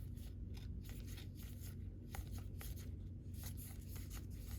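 Trading cards handled and slid past one another by hand, a run of light, irregular clicks and rustles of card stock over a steady low hum.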